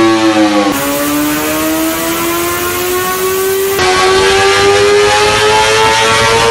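Superbike inline-four engines run at full throttle on a motorcycle dyno, each engine note climbing steadily in pitch as it pulls up through a gear during a power run. The sound cuts abruptly twice, about a second in and about halfway, each time dropping back to a lower note that then climbs again.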